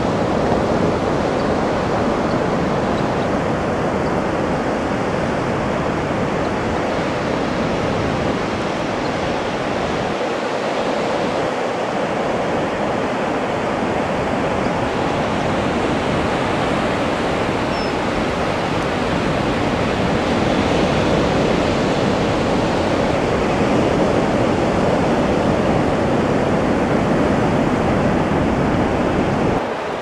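Ocean surf breaking and washing up the beach: a steady, unbroken rush of water noise.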